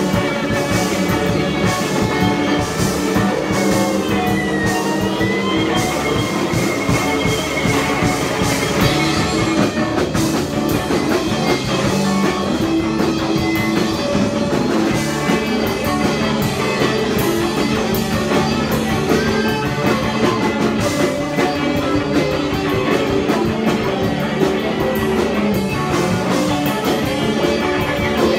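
Live punk band playing an instrumental passage: guitar, bass and drum kit together, with a note bending in pitch about four seconds in.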